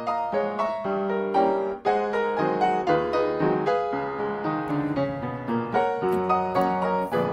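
Background ragtime piano music, a lively run of short notes.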